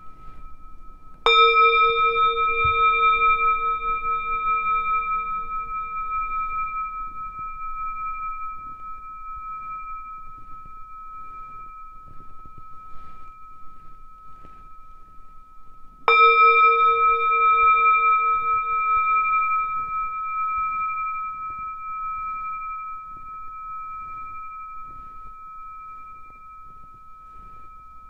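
Tibetan singing bowl struck twice, about fifteen seconds apart, each strike ringing on in a long, slowly fading tone with a gentle wavering in loudness.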